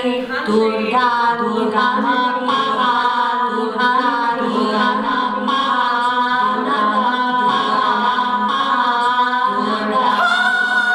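A woman singing unaccompanied in a slow melody of long held notes, with a slight waver on each note.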